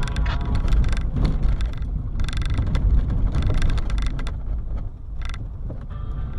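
Car on the move: steady low rumble of road and wind noise, with a run of clicks and rattles through the middle.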